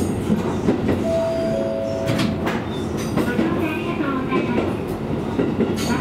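KiHa 220 diesel railcar running along the track, wheels clattering over rail joints, with sharp clicks about two seconds in and near the end. A thin steady tone sounds for about a second and a half early in the run.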